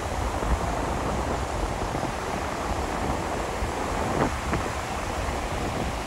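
Ocean surf washing in under strong wind, with gusts buffeting the microphone in a steady low rumble.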